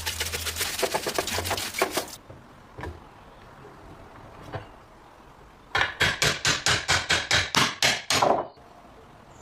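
Hand-tool work on an old tool: two runs of quick, sharp repeated strokes, about six a second, the first over the opening two seconds and the second from about six seconds in to eight and a half, with a few single knocks between.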